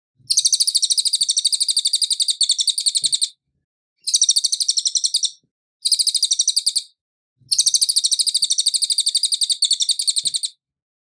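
Cililin songbird singing four bouts of rapid, evenly repeated high chirping notes. Two bouts are long (about three seconds each) and two are short, separated by brief silences.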